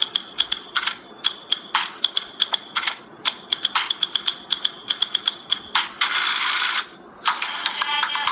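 Dance track played back through a speaker, in a sparse percussive break: sharp clicks at about three a second over a thin steady high tone, then a short burst of noise. The full music comes back near the end.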